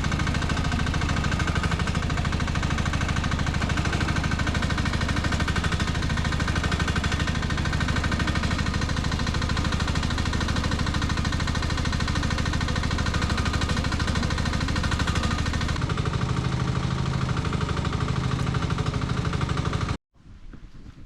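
The small engine of a Nuoman E10 1-ton mini excavator running steadily under work, its hum deepening somewhat about three-quarters of the way through. It cuts off suddenly about twenty seconds in, leaving only faint scattered sounds.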